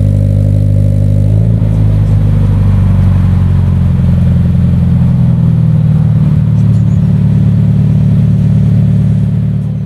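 Subaru-built FA20 flat-four boxer engine of a Scion FR-S idling after a cold start, heard at the tailpipes through an Invidia N1 cat-back and catless front pipe with no cats or resonators. The low idle note shifts about a second and a half in, then holds steady before fading out at the end.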